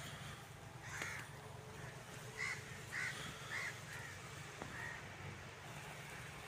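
A bird calling outdoors in a series of short calls: one about a second in, then four in quick succession between two and a half and four seconds, and a fainter one near five seconds, over a low steady background hum.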